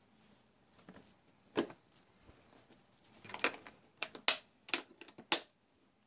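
Scattered light plastic clicks and knocks, about half a dozen, as the flexible hose is pulled out of a compact wet-dry shop vac's plastic housing and handled.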